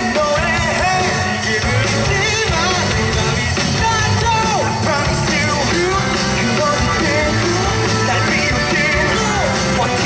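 Live amplified rock song with singing over a full band sound.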